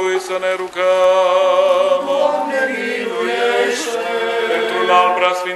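Small group of men's voices chanting an unaccompanied Romanian Orthodox liturgical response in sustained held notes.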